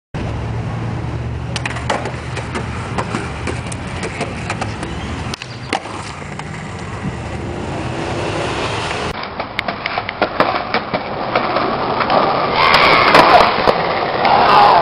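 Raw skateboard sounds across a few clips: a steady rumble of wheels rolling on concrete, broken by sharp clacks and knocks of the board popping, landing and hitting the ground. Near the end there is a louder, rougher stretch as a skater slams onto asphalt.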